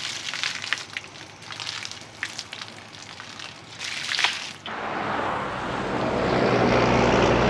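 Irregular wet smacking and crackling of someone eating soft, juicy cempedak flesh. About four and a half seconds in, it cuts abruptly to the steady road and wind noise of a car driving, growing louder.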